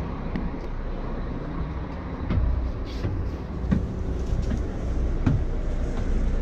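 Steady low rumble of a parked coach, with scattered short knocks and clicks as people board and move about inside.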